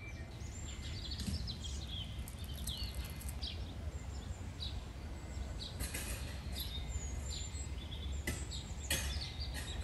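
Birds chirping in scattered short calls over a steady low outdoor rumble.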